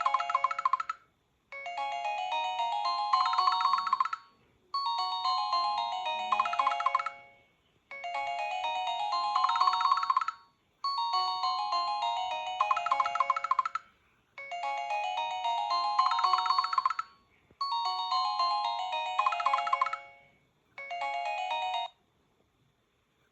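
Corise KS728 mobile phone playing a melodic ringtone through its speaker. A short phrase, a falling run of notes followed by fast repeated notes, loops about seven times with brief gaps between. It cuts off partway through the last loop, about 22 seconds in.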